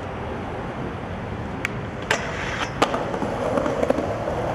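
Skateboard wheels rolling over concrete with a steady rumble. Several sharp clacks of the board cut through it, the loudest about two and three seconds in, followed by a few lighter clatters.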